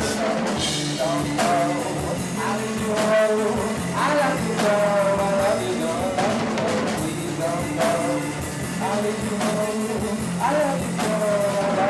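Live rock band playing a song: drum kit beating steadily under guitar and a wavering sung or lead melody, recorded from the room with rough sound.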